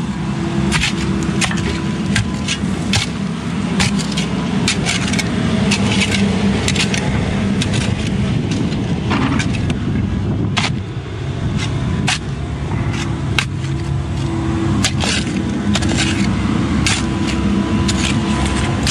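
Steel shovel blade repeatedly chopping and scraping into hard, rocky dirt, in irregular strikes about one or two a second with a short pause partway through. Under it a heavy-equipment engine, likely the excavator's, runs steadily.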